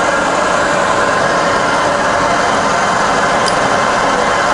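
The variable-speed head of a fully rebuilt Bridgeport turret milling machine, running steadily with the spindle at about 1300 RPM in high range: an even hum with several steady tones.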